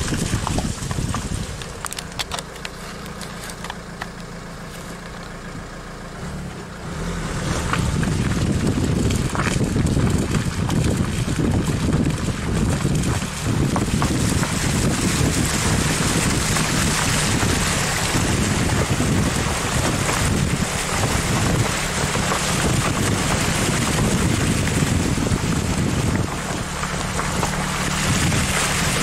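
A 4x4's engine running as it drives along a flooded track. From about seven seconds in, a loud steady rushing noise from the wheels going through water covers the engine, easing again near the end.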